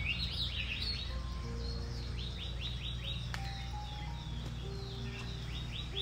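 Forest birds singing: quick runs of short sweeping whistles, repeated three times, over a steady low background. Soft sustained notes of background music sit underneath.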